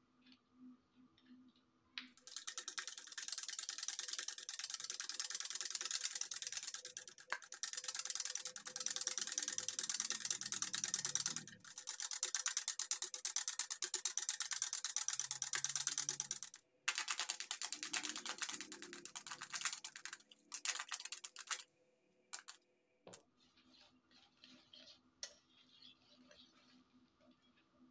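Hand-held wire balloon whisk beating egg white in a plastic bowl: fast, continuous clattering of the wires against the bowl, with a few brief pauses, stopping after about twenty seconds. Then faint light clicks of a spoon stirring mashed banana and egg yolk in a steel bowl.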